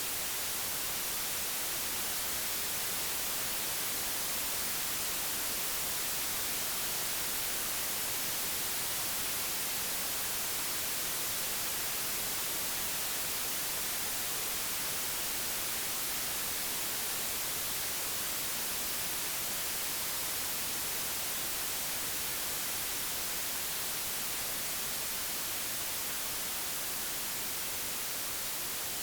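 Synthesized white noise: a steady, even hiss across all pitches, brightest in the highs, unchanging throughout.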